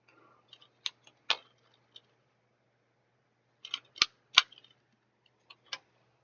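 Sharp clicks and taps from small items and packaging being handled. They come in two clusters, about one second in and about four seconds in, with a couple more near the end.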